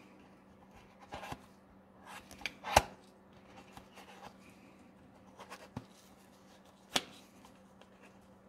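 Small cardboard boxes being handled by a nitrile-gloved hand: scattered light taps, knocks and rubs as the boxes are picked up and set down on a table. The sharpest knock is about three seconds in, another near the end.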